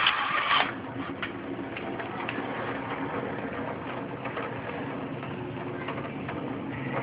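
Monsoon thunderstorm downpour: heavy rain falling steadily, with scattered sharp ticks of drops striking hard surfaces and a louder rush in the first half second.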